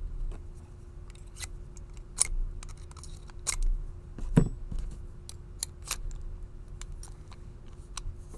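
A key clicking and scraping against the keyway of a brass padlock in irregular sharp metallic ticks, the loudest about four and a half seconds in. The key is being tried upside down, so it won't go in.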